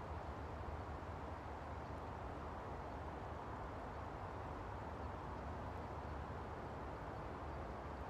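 Steady low rumbling outdoor background noise with no distinct events.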